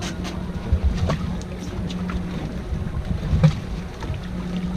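Mercury outboard engines idling with a steady low hum, with wind buffeting the microphone and a few sharp knocks.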